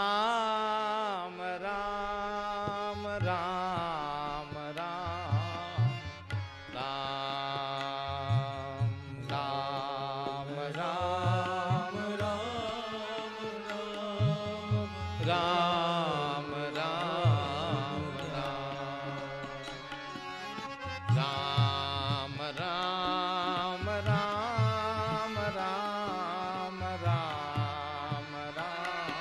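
Slow devotional bhajan music: a gliding, ornamented melody over tabla strokes.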